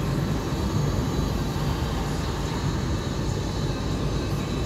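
Steady low rumble of a car driving along, heard from inside the cabin: tyre and engine noise with no distinct events.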